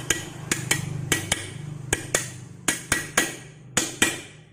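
Hammer tapping on metal: a run of sharp, ringing strikes, about two or three a second and unevenly spaced, over a steady low hum.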